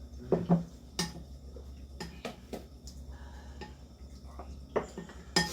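Spoons and chopsticks clicking against bowls while eating: a scattering of short sharp clicks, over a low steady hum.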